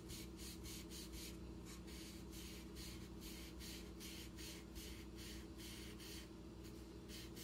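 Felt-tip marker rubbing on paper in quick back-and-forth colouring strokes, about three a second, faint over a steady low hum.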